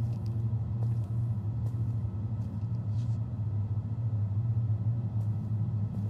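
A steady low rumble, with a few faint ticks over it.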